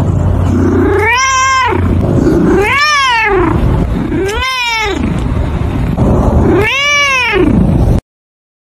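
Domestic cat meowing four times, each meow rising then falling in pitch, over a steady low rumble.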